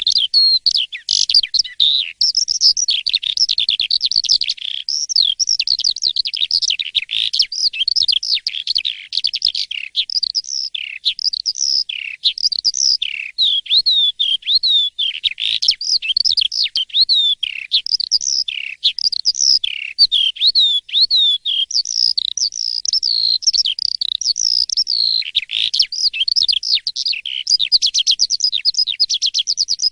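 Jalak suren (pied starling) in full, nonstop song: a loud, continuous stream of quick, varied whistles and chirps sweeping up and down, breaking into a fast run of short repeated notes near the end.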